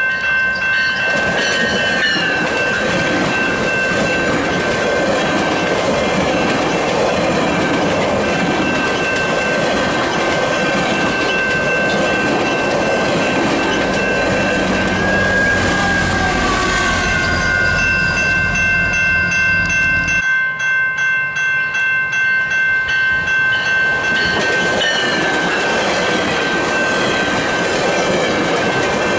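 GO Transit bi-level passenger train passing close by over a level crossing: wheels clattering over the rail joints with a continuous rolling rumble, and a steady high ringing tone over it. A deep low rumble underneath cuts off about twenty seconds in, and the wheel clatter carries on in an even rhythm after that.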